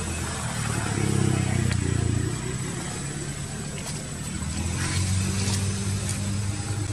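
Small motorbike engine running with a low, steady hum, picking up briefly about a second in and again about five seconds in.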